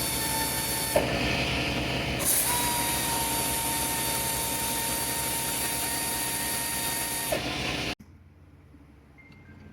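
A motor-driven machine running steadily with a high whine and a hiss. Its pitch dips briefly about a second in and again shortly before it cuts off abruptly, about eight seconds in.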